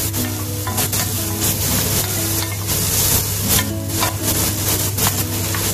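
Sliced onions, ginger and tomato sizzling in hot oil in a pot, stirred with a wooden spatula that scrapes the pan, over background music.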